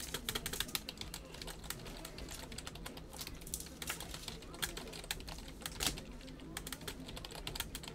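Rapid, irregular clicking of keys being typed on a computer keyboard, with one louder click about six seconds in.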